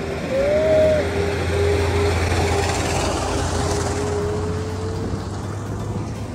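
A vehicle passing on the road: a rush of engine and tyre noise that swells and then fades over a few seconds, over a steady low hum. A short rising tone about half a second in is the loudest moment.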